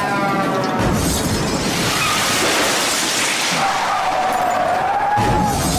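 A loud, noisy edited-in crash sound effect over music, filling the gap after the joke about running a man over, with a wavering tone in the second half.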